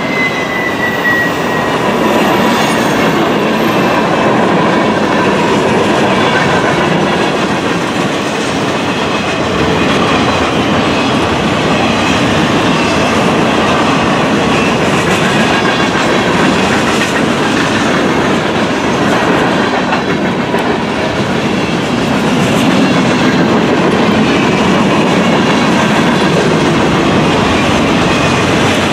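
Freight cars of a long mixed freight train rolling past close by at a steady speed: a loud, continuous rumble and clatter of steel wheels on rail, with faint thin high whines from the wheels rounding a curve.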